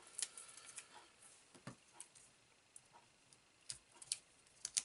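A few faint, scattered clicks and light rustling of hands handling a sheet of adhesive foam pads and paper on a craft mat.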